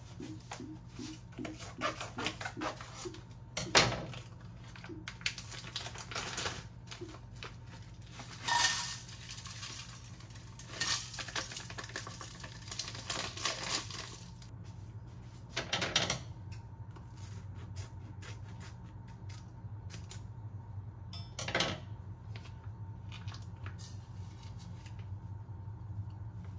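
Plastic seasoning packets rustling and being torn open, with small clicks and a few louder knocks against a pot as spices and dried chillies are tipped in. A noisier stretch of crinkling runs from about a third of the way in to about halfway. A low steady hum sits underneath throughout.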